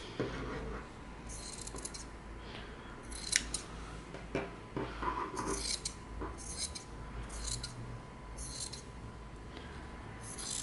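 Scissors cutting through embroidery fabric: about seven separate crisp snips, two in the first few seconds and then five more at roughly one-second intervals.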